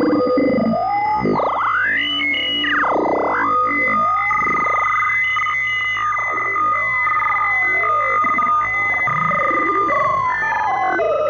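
Synthesized sci-fi UFO communication sound effect: electronic tones swooping up and down every second or two over steady, high held tones, turning into faster warbling glides near the end.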